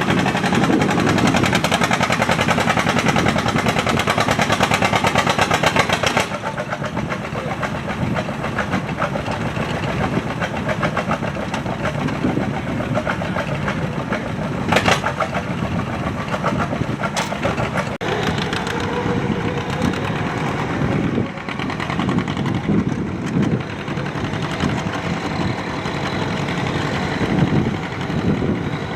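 Antique farm tractor engine running hard with a rapid firing rhythm. It drops in level about six seconds in and runs on more unevenly, with a sharp crack about halfway through.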